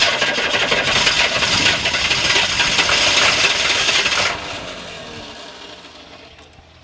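GM 6.2 diesel being cranked by its direct-drive starter in deep cold, a fast rasping churn that stops about four seconds in and dies away over the next couple of seconds without the engine catching. It is a hard cold start that the owner puts down to too little glow time and the glow plugs.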